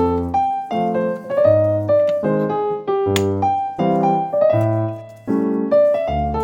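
Background piano music: a light melody of short notes over low bass notes.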